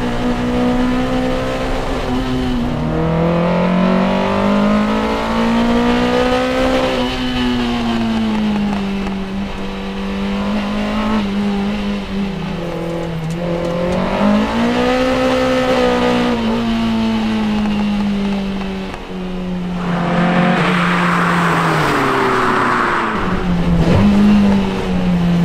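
Peugeot 205 GTI's swapped 1.9-litre Mi16 four-cylinder, breathing through individual Omex throttle bodies, driven hard through the gears. The revs climb and then drop back at each gear change, several times over. A rushing noise joins in about twenty seconds in.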